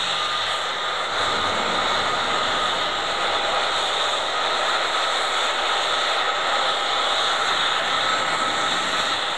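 Boeing 737 airliner's jet engines running on the runway: a steady rush with a thin high whine, growing a little stronger near the end.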